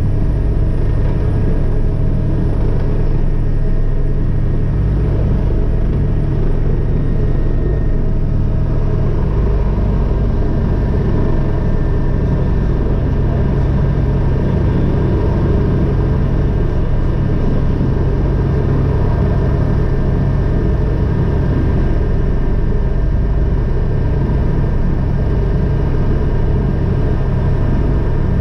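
Agusta AW119 helicopter's single turboshaft engine and rotor running, heard from inside the cockpit as a loud, steady rumble. A thin high turbine whine slides down and fades about seven seconds in as engine power is brought back, with gas-generator speed falling from about 92% to 77% and torque from 56% to 17%.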